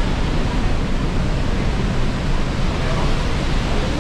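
Niagara's Horseshoe Falls, heard right at the foot of the plunge: a loud, steady roar of falling water, heaviest in a deep rumble.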